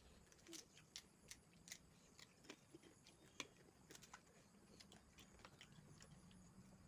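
Faint, irregular crunches and clicks of crisp pani puri shells being bitten and chewed.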